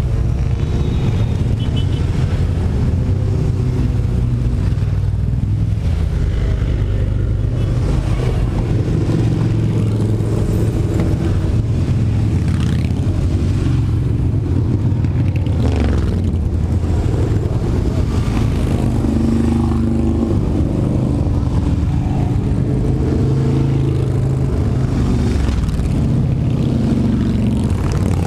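A long line of motorcycles, mostly large touring bikes, running past at low speed one after another, their engines overlapping in a continuous low rumble, with a few rising revs as riders accelerate.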